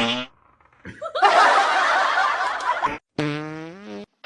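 Fart noise: a loud, raspy blast lasting about two seconds starting about a second in, followed by a shorter buzzing one.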